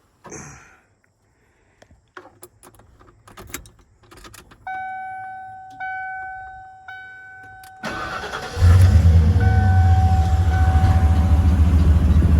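1992 Ford F-150 being started: a few clicks and rattles, then the dashboard warning chime sounds three times about a second apart, fading after each ding, before the starter cranks and the engine catches about eight seconds in and settles into a loud, steady idle.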